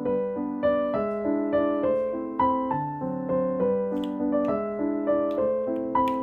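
Background piano music: a light melody of single notes struck two to three times a second over held chords.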